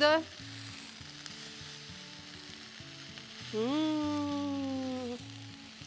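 Chopped collard greens sizzling steadily in oil in a frying pan as they are stirred and tossed. About three and a half seconds in, a voice holds one long note for about a second and a half, rising and then slowly falling.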